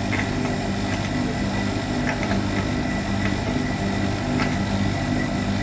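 Compressor running steadily under test, a constant low hum with a faint high whine, while its pressure stays stuck at about 400 and will not rise: the compressor is leak-pumping, the sign of a bad compressor.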